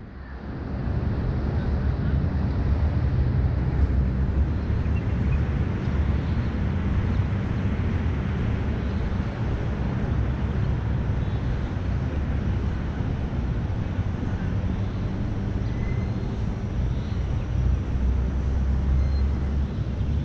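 Steady low outdoor rumble of wind buffeting an action camera's microphone as the wearer walks.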